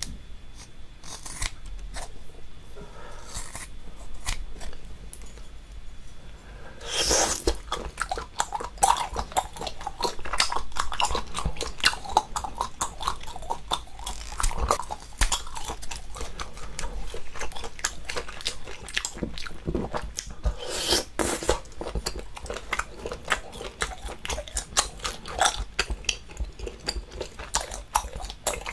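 Close-miked eating of boiled octopus in spicy sauce: a few scattered clicks at first, then from about a quarter of the way in a dense run of chewing and biting sounds, alongside kitchen scissors cutting through octopus tentacle.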